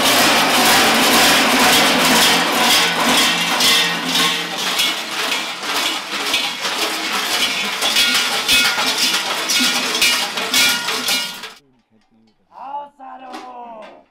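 Loud, dense clanging of many large bells worn by running Klaubauf (Krampus-type masked figures), with voices mixed in. It stops abruptly about eleven seconds in, and a couple of short voice sounds follow.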